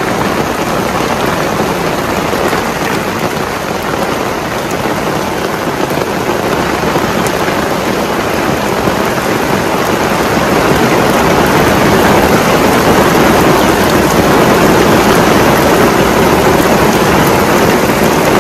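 Heavy rain falling, a loud even hiss of drops that grows slightly louder about halfway through.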